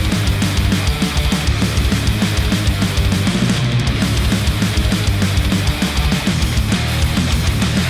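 Heavy rock music with a fast, steady drum beat, played back through open-back Sennheiser headphones and recorded by microphones at the earcup.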